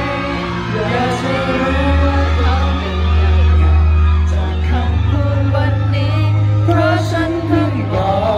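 Thai pop song performed live through a PA: a male voice singing into a handheld microphone over backing music with long sustained bass notes. A second male voice joins near the end.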